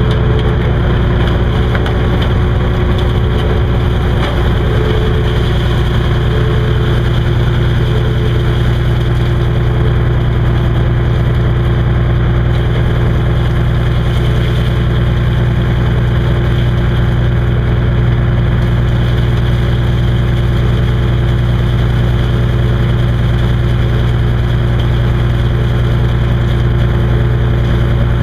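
Small beam trawler's engine running steadily at an even, unchanging speed.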